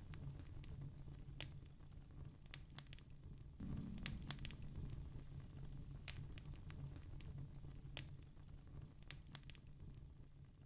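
Faint crackling wood fire: irregular sharp pops and snaps over a steady low rumble.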